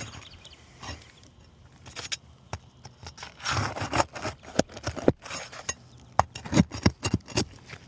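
Irregular scraping and rubbing with sharp clicks and knocks of asphalt roof shingles being handled and worked loose, busiest in the second half.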